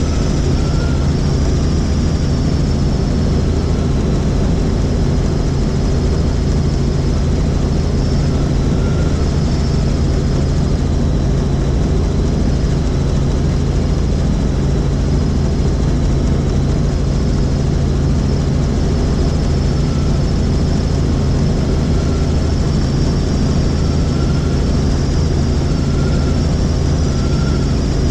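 Helicopter in flight: a steady, loud drone of rotor and turbine engine, with a high whine that wavers slightly over it.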